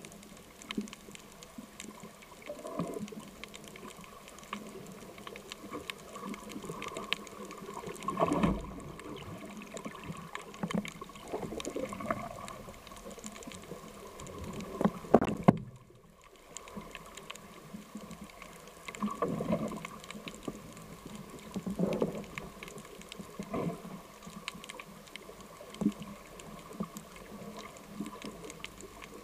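Underwater sound picked up by a speargun-mounted camera in its waterproof housing during a spearfishing dive: a steady crackle of small clicks with irregular muffled knocks and bumps. The two loudest bumps come about a third of the way in and about halfway through, and the sound briefly drops out just after the second.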